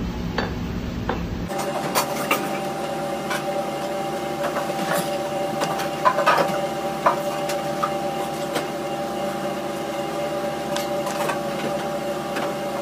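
A kitchen knife cutting through rolled dough logs and knocking on a plastic cutting board in irregular sharp strikes, over a steady mechanical hum.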